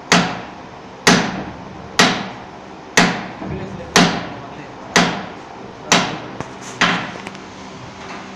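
Hammer blows on a steel liner driver, tapping a cylinder liner down into the bore of a Nissan UD diesel engine block. Eight sharp metallic strikes about one a second, each ringing briefly.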